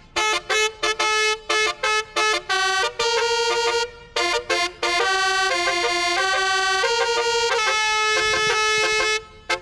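A horn playing a tune: a quick run of short and held notes that step up and down in pitch, with brief gaps between them and a longer held note near the end.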